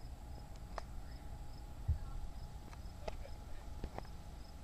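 Wind rumbling on the microphone outdoors, with a few scattered sharp clicks, a single thump about two seconds in, and a faint high tick repeating about twice a second.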